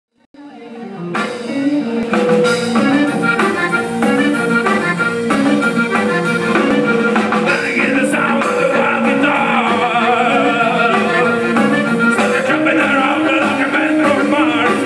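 Live rockabilly band playing, with guitar, upright bass, drum kit and accordion over a steady beat, and a voice singing. The music starts about a third of a second in and builds to full level within the first two seconds.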